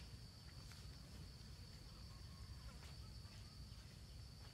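Faint, steady high-pitched insect chirring, unbroken throughout, over a low rumble of outdoor background noise.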